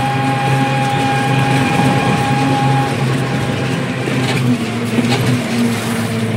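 Engine of a road vehicle running steadily as it drives along, heard from inside with road noise. A steady high whine sounds for the first three seconds, and a couple of light knocks come near the end.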